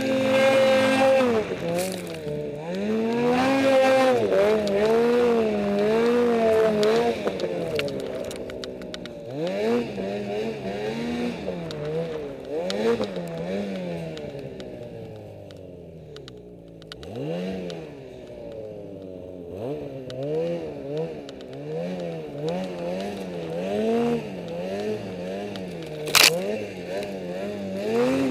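Snowmobile engine being throttled on and off as it rides through the snow, its pitch rising and falling about once a second. Near the middle it drops low and nearly settles before sweeping back up, and a single sharp knock comes near the end.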